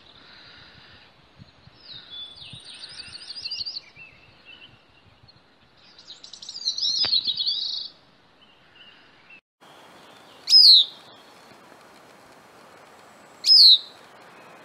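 Bicknell's thrush singing two song phrases with rapid trills, the second louder. Then, about ten seconds in, come two loud, sharp call notes that fall steeply in pitch, about three seconds apart.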